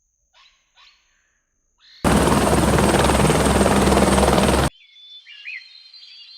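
A loud steady noise with a low hum cuts in abruptly for about two and a half seconds, between quieter stretches of short bird-like chirps.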